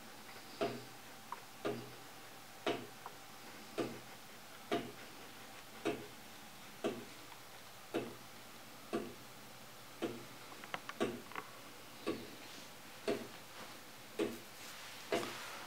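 Handcrafted wooden gear clock of Clayton Boyer's Swingtime design ticking at its escapement as the big swinging frame beats, about one sharp tick a second, with a few lighter clicks in between around the middle.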